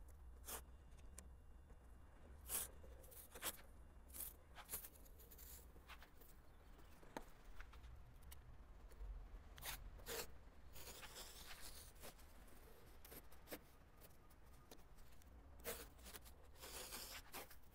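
Faint sounds of thin masking tape being pulled off the roll and pressed along a plastic bumper: scattered small clicks and handling noises, with two short tearing rasps in the second half.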